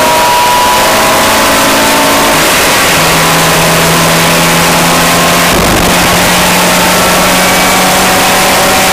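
A car's engine under hard acceleration, heard from inside the cabin, its pitch climbing slowly and then dropping about three seconds in as it shifts up a gear. A short low rumble comes near the middle, and loud wind and road noise run underneath.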